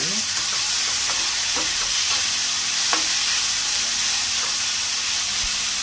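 Finely chopped onions sizzling steadily in hot oil in a stainless steel frying pan, being sautéed until soft, while a spoon stirs them with a few light scrapes against the pan.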